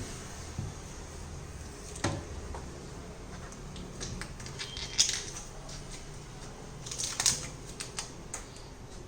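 Scattered clicks, taps and light knocks of hard objects being handled, with a few sharper knocks about two, five and seven seconds in.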